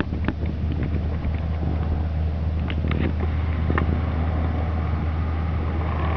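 Steady low hum of an idling engine, with a few faint clicks scattered through.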